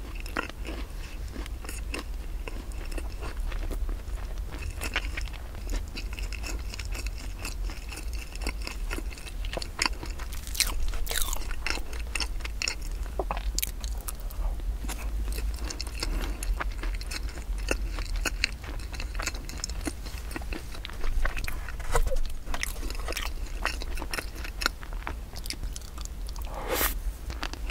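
Close-miked chewing and biting of soft rice-flour cake with a cream topping: a steady run of wet mouth clicks and smacks. A steady low hum sits underneath.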